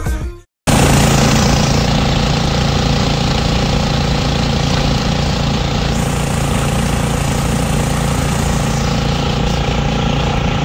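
Motor vehicle's engine running steadily, heard from on board while moving, with road and wind noise. It comes in about a second in, after a short break.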